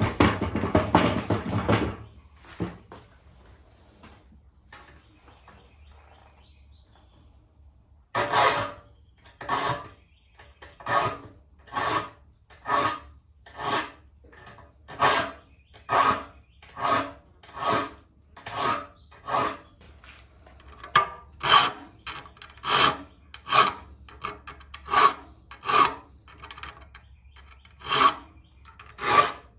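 A file worked stroke by stroke across the teeth of an old Disston hand saw to sharpen them. After a brief scraping burst and a few seconds' pause, the strokes settle to an even rhythm of about one a second.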